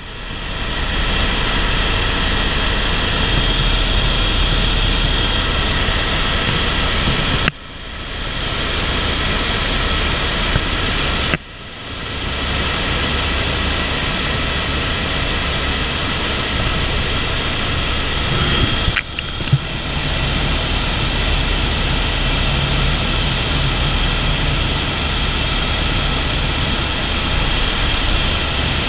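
Steady in-flight cabin noise of an AS350 (H125) Ecureuil single-turboshaft helicopter in cruise: rotor drone with a high turbine whine on top. The sound dips sharply three times and builds back each time.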